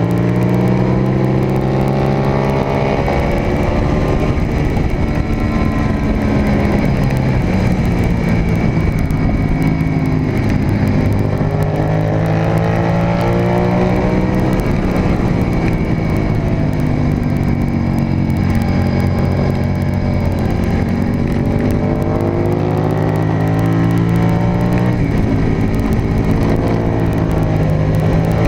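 Race motorcycle engine heard from onboard at full speed, its pitch climbing under acceleration and dropping through shifts and braking into corners, over heavy wind rush on the microphone.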